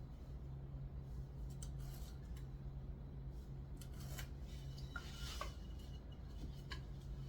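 Scattered light clicks and taps of hand tools being handled, with a short scrape about five seconds in, over a steady low hum.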